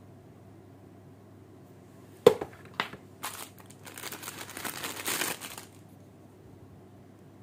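Packaging of a toy bubble gun being handled during unboxing: a sharp click, a second smaller click half a second later, then about two and a half seconds of crinkly rustling.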